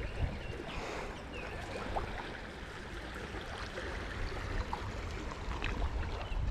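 Small river flowing steadily, a continuous rush of water, with a few faint clicks over it.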